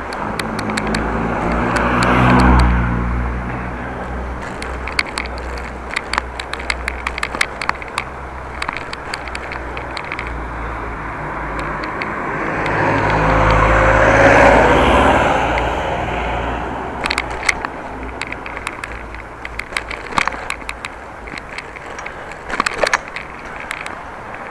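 Two motor vehicles pass, each swelling and fading, about two seconds in and again around fourteen seconds in. Underneath is steady rumble from the moving bicycle, with frequent small clicks and rattles.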